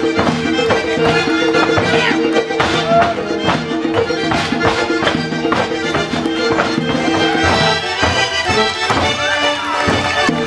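Fast traditional Georgian folk dance music: a steady held drone under a quick, driving beat. The drone drops out for a moment near the end.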